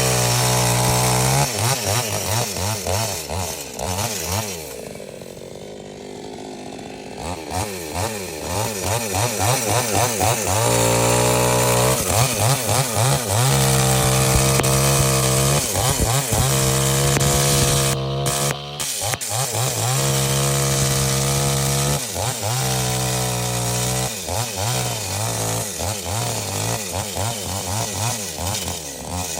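Chainsaw running at high revs and cutting wood, its pitch wavering as the chain bites. It drops to a lower, quieter note about five seconds in, then revs back up and keeps cutting.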